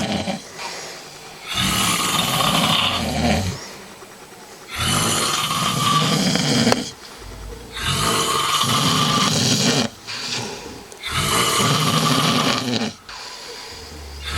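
A sleeping person snoring heavily: four long, loud snores about three seconds apart, with quieter breathing between them.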